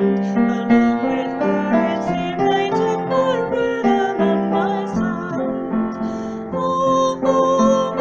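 Song music carried by a keyboard playing held chords and a melody that change every half second or so.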